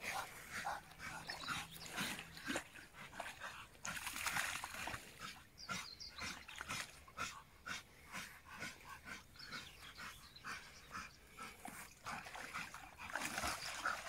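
Rottweilers splashing in shallow pond water, with high whining and whimpering from the dogs.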